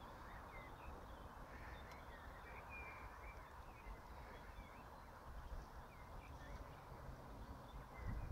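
Faint, scattered bird calls, short chirps coming every second or so, over a low steady outdoor rumble.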